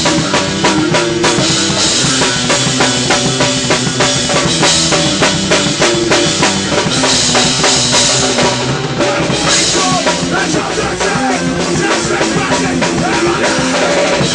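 Loud rock band music, with a full band playing and the drum kit prominent, hitting fast and densely.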